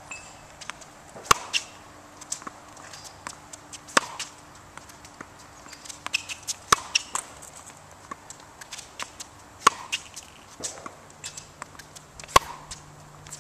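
Tennis ball struck with a racket about every three seconds, each hit a sharp pop, with smaller taps of ball bounces and footsteps on a hard court between the hits.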